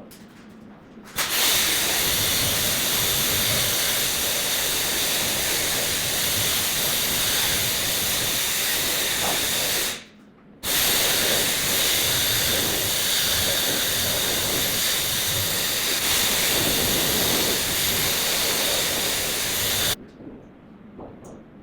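Gas under pressure hissing out loudly in two long bursts, each cut off suddenly, with a short break about halfway through.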